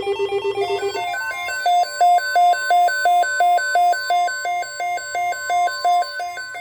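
NOAA Weather Radio's steady single-pitch 1050 Hz warning alarm tone, sounding the alert ahead of a severe thunderstorm watch. An electronic alarm beeps over it, a fast trill at first that changes about a second in to a repeating beep alternating between two pitches, roughly two to three beeps a second.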